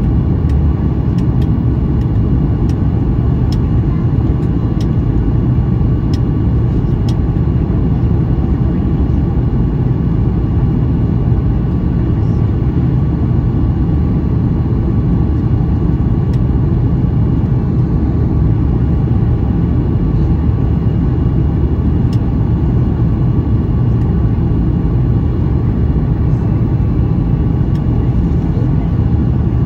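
Steady cabin roar inside a Boeing 737 MAX 8 during its descent on approach with the flaps extended: airflow rumble and its CFM LEAP-1B engines running, with a few faint steady tones above the rumble.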